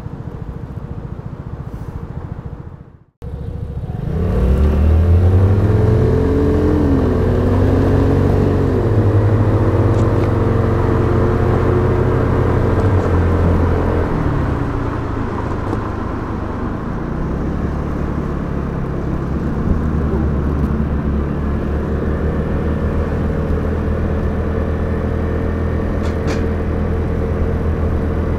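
Vespa GTS 300's single-cylinder four-stroke engine heard from the rider's seat. After a brief break about three seconds in, it pulls away with its note rising, eases off around the middle, then runs steadily at cruising speed.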